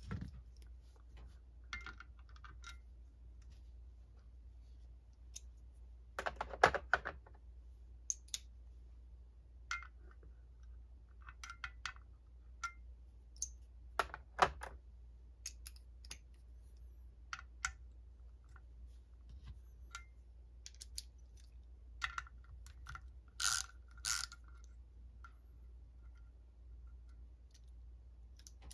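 Scattered metallic clicks and clinks of hand tools and small parts as the terminal hardware is removed from the rear housing of a Ford alternator. The clicks are irregular, with a few louder clinks, some of which ring briefly.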